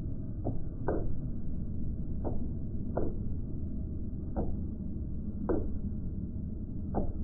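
Parcel shelf in a sports car's boot ticking and creaking where it rubs on hard plastic trim. Short, sharp creaks come about seven times at irregular intervals over a steady low rumble. This is a squeak-and-rattle fault from plastic-on-plastic contact.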